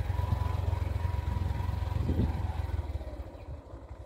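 Small motorcycle engine running as it is ridden over a dirt track, easing off about three seconds in to a quieter, slower putter with the separate firing pulses audible.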